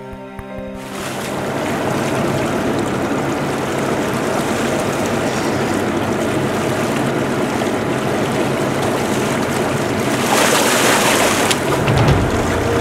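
Seawater rushing and splashing against the side of a sportfishing boat, with the boat's engine humming steadily underneath; a louder rush of water comes about ten seconds in.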